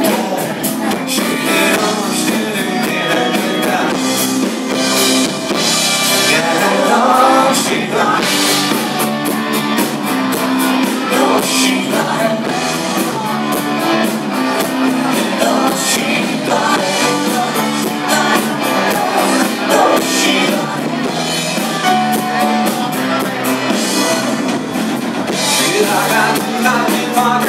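Live rock band playing a song: electric guitars and a drum kit with singing over them, loud and steady, with little deep bass.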